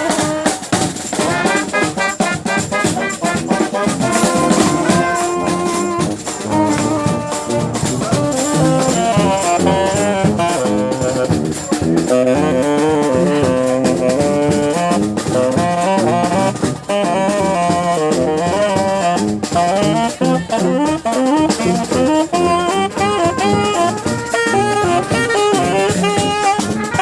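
Brass band playing live jazz: saxophone, trumpets and trombones over a steady drum beat.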